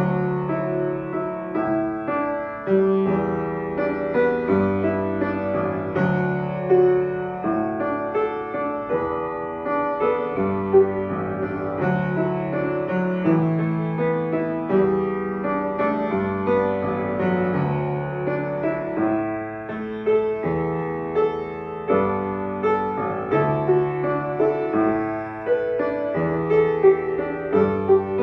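Upright piano played solo: an instrumental passage of chords over bass notes struck in an even pulse, with no singing.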